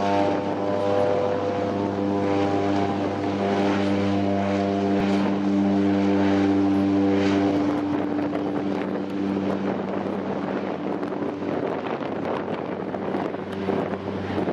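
De Havilland Canada DHC-3 Turbo Otter floatplane's turboprop engine and propeller at take-off power, a steady pitched drone over a rushing hiss as it skims across the water. The higher tones thin out after about eight seconds and the sound eases as the plane draws away.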